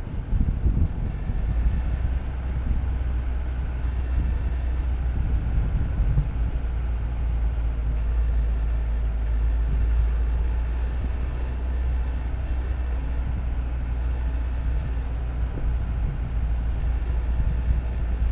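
Steady low rumble of a vehicle driving along a paved road, heard from a camera mounted on it: tyre and wind noise, settling into an even drone about a second in.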